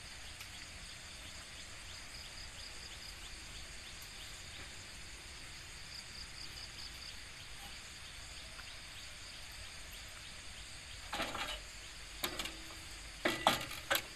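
Quiet field ambience with insects chirping in short high bursts, then a few short clatters near the end as metal tractor implements are handled.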